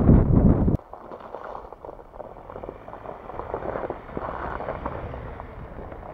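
Wind buffeting the microphone, cut off abruptly under a second in. Then a Ford Ranger Raptor's engine and tyres on a muddy track as the pickup drives past, loudest about four seconds in, then fading as it pulls away.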